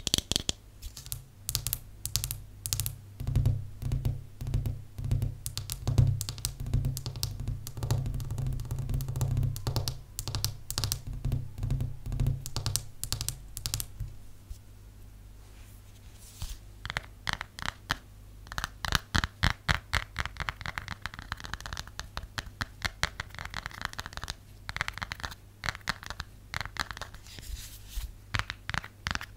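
Long nails tapping fast on hard surfaces. For roughly the first half they tap a dry shampoo bottle, with deep hollow knocks; after that come lighter, sharper clicks on a glass tabletop and then on a phone case.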